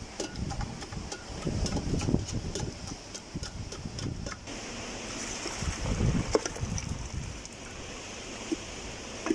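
A metal ladle clinking and scraping against the inside of an aluminium cooking pot as meat and chickpeas are worked, in rapid clicks that thin out after about four seconds, over wind buffeting the microphone. Near the end, broth is poured from a second pot into it.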